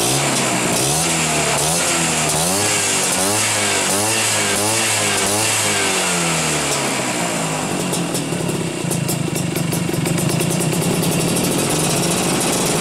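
Classic Vespa's two-stroke single-cylinder engine through a long right-side R1 racing muffler, revved in quick throttle blips about two times a second, then settling to a steady idle about seven seconds in.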